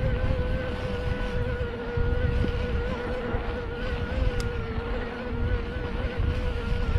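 Riding a bicycle through a sandy wash: wind rumbling on the microphone, rising and falling, under a steady high-pitched hum that wavers slightly.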